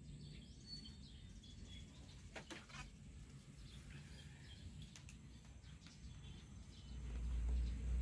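Quiet outdoor background with faint birds chirping. A low rumble on the microphone builds near the end.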